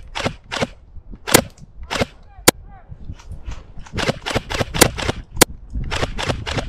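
Airsoft guns firing single shots and short quick strings at an irregular pace, with a few sharper, closer cracks among them.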